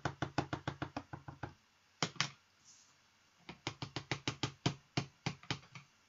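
Clear acrylic stamp block and ink pad tapped together in quick runs of light knocks to ink a rubber stamp: about a dozen quick taps, two more about two seconds in, then another run of about ten.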